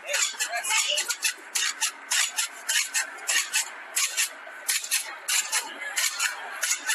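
Skateboard rolling and scraping on concrete ledges: a run of rough, rasping scrapes, a few per second.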